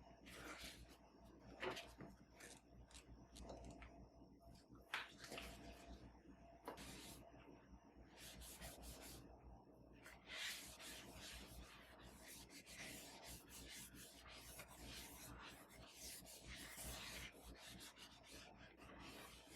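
Quiet handling sounds: soft, irregular rubbing and rustling, with a few sharper scrapes or light knocks.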